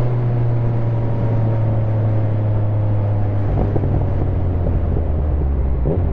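Yamaha MT-09 inline three-cylinder engine on the overrun after a rev, its note slowly falling, over wind rumble on a helmet microphone. About halfway through the note steps lower, with a few short crackles, and it picks up slightly near the end.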